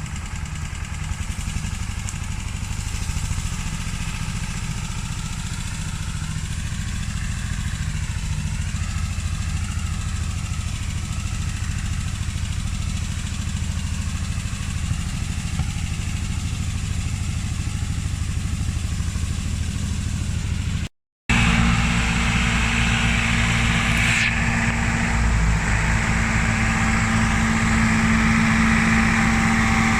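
Tractor engines running under load in a mud recovery. There is a brief dropout about two-thirds of the way through, after which the engine is louder and harsher.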